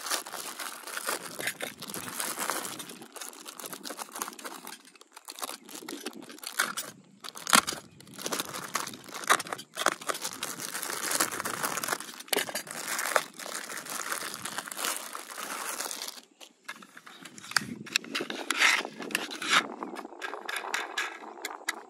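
Packaging being handled and torn open: irregular crinkling, rustling and tearing with brief pauses, as a die-cast toy tractor model is unboxed.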